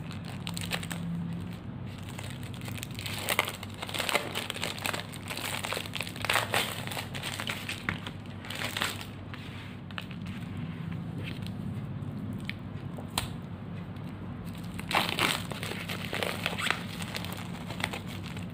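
Clear plastic wrapping crinkling and rustling off and on as a packaged 3D puzzle is handled and its printed sheets are drawn out of the bag. A steady low hum runs underneath.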